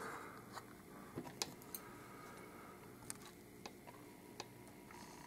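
Faint, irregular light clicks, about nine in all, as small metal lock pins and parts from a disassembled Euro cylinder are handled.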